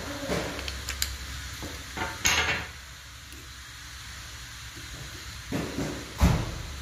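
Parts of a disassembled AEG electric drill being handled: the plastic housing and the metal motor and brush parts click, scrape and knock at irregular moments, with a louder clatter about two seconds in and the loudest knock near the end. A steady low hiss runs underneath.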